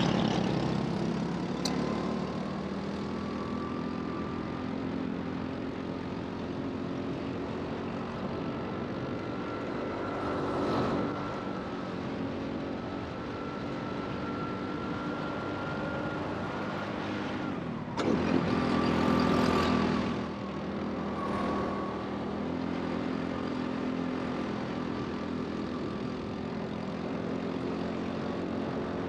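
Rental go-kart running on track, its motor's pitch climbing slowly several times and dropping back in between. About two-thirds of the way through comes a loud rush of noise lasting about two seconds.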